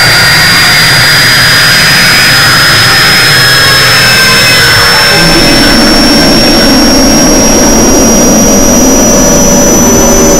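Loud mashup of harsh, dense noise with a piercing high whine that climbs slowly in pitch; the lower layers of the mix change about halfway through.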